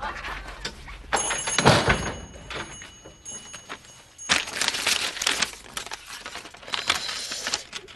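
Paper rustling and crinkling as an envelope is handled and a letter pulled out and unfolded. A dull thump comes a little under two seconds in.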